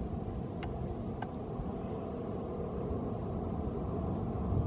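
Boeing 747-400's four turbofan engines on final approach, a steady low rumble.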